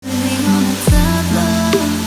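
Electronic dance music with held synth notes, a deep bass kick falling sharply in pitch just before a second in, and a sharp snare-like hit near the end.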